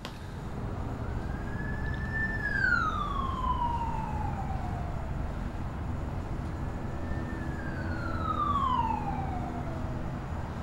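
Siren wailing twice, about five seconds apart: each wail rises briefly, then falls away slowly over a few seconds. Under it runs a steady low rumble.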